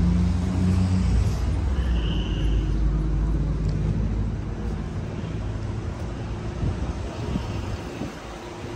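Motor vehicle engine running with a low, steady rumble that fades somewhat after about four seconds.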